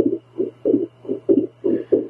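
A woman's heartbeat picked up by a handheld Doppler monitor: fast whooshing pulses, about three to four a second, in a slightly uneven rhythm over a steady low hum. The uploader describes her heart as going into a very irregular rhythm.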